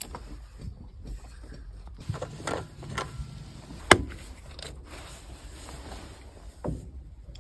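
A few scattered sharp clicks and knocks, the loudest about four seconds in, over a low steady hum.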